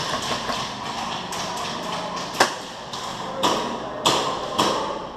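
Airsoft guns firing single shots: a few sharp snaps in the second half, spaced about half a second to a second apart.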